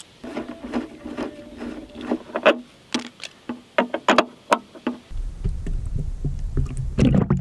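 A quick, uneven run of light clicks and knocks, then from about five seconds in a low steady rumble.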